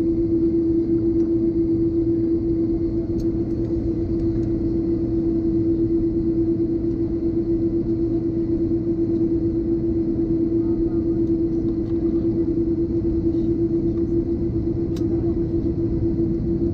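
Steady cabin hum inside an Airbus A330-200 waiting on the ground with its engines at idle, carrying one strong unchanging drone tone, with a couple of faint clicks.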